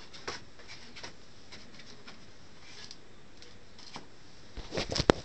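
Soft scratches and taps of hands handling a foam model-plane wing and flexing its hinged foam aileron, over steady hiss. Near the end, a short run of louder knocks with one sharp tap.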